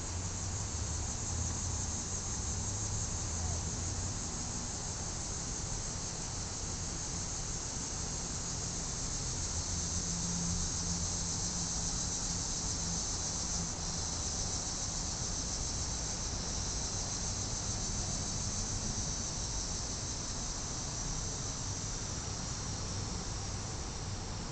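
Steady, high-pitched chorus of insects such as crickets, holding unbroken, with a faint low rumble underneath.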